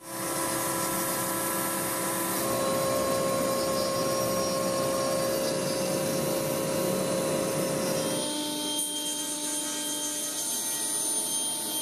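X-Carve CNC router spindle running steadily while milling step grooves into a spruce block, a constant whine over cutting noise. About eight seconds in the sound changes to a table saw running as a grooved spruce ramp is fed past the blade.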